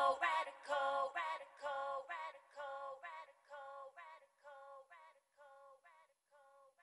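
Closing section of a pop song: a voice repeats short sung notes as the track fades out to near silence, the bass dropping away about a second in.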